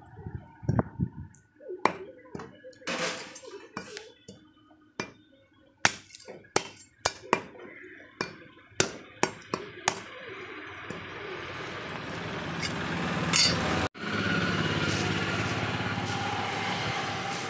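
A butcher's cleaver chopping rabbit meat and bone on a wooden chopping block: sharp, irregular knocks, a few a second, for about the first ten seconds. After that a steady noise swells up, breaks off sharply once and carries on louder.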